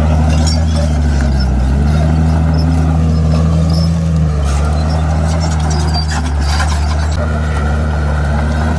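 Komatsu D51PX bulldozer's diesel engine running steadily, its pitch dipping briefly about a second and a half in and shifting again around four seconds in as the load changes, with faint scattered clicks and clanks.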